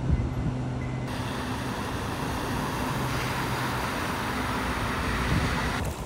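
A car driving through standing floodwater. Its engine hums low, under a steady rushing swish of water thrown up by the tyres.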